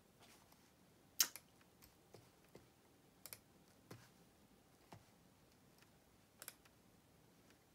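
Near silence in a small room, broken by about ten faint, irregular clicks and taps, the sharpest about a second in.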